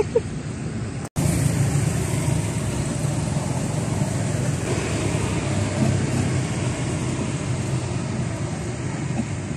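Steady road traffic, with the low hum of a vehicle engine running close by. The sound cuts out for an instant about a second in, then carries on evenly.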